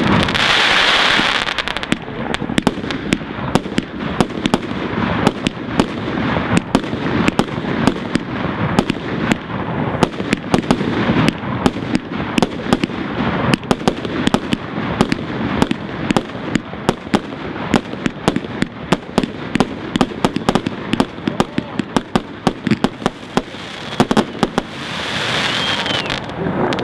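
Fireworks display: a fast, irregular string of bangs and crackles from bursting aerial fireworks. A hiss rises over it in the first two seconds and again near the end.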